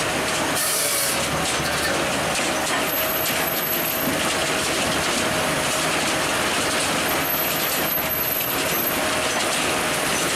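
Firewood processing machinery running, a steady dense mechanical noise with a constant whine through it.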